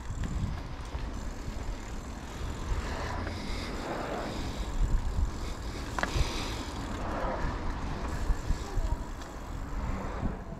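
Mountain bike being ridden on a dirt trail: tyres rolling and the bike rattling, with low wind rumble on the microphone and a sharp click about six seconds in.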